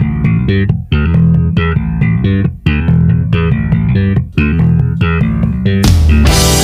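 Rock song intro led by an electric bass playing a choppy slap-bass riff of short, repeated notes. About six seconds in, the full band comes in with a cymbal crash.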